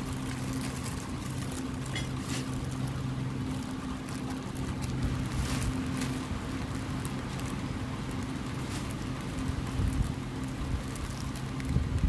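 A steady low hum with scattered light rustles and taps of packaging being handled, and a couple of louder knocks near the end.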